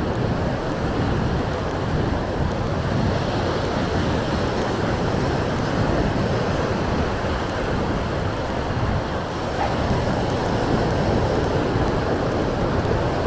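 Surf washing onto a beach with wind blowing across the microphone: a steady, unbroken noise heavy in the low end.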